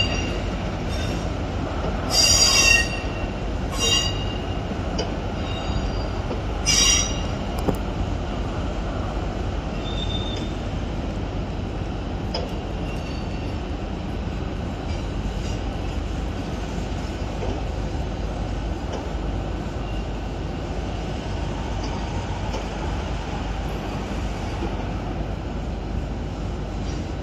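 A train running on the track with a steady low rumble, and four short high-pitched squeals in the first seven seconds.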